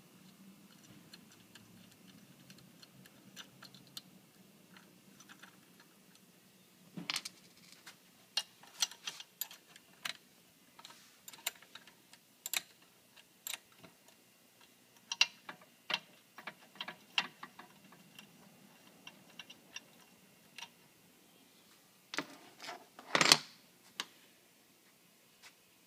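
Irregular clicks and light metal taps of a wrench working the two 10 mm nuts and bolts off a cart gearbox, sparse at first and loudest about three seconds before the end.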